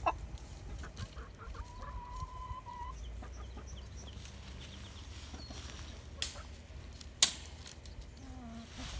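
Chickens clucking quietly, with two sharp clicks near the end, the second one louder.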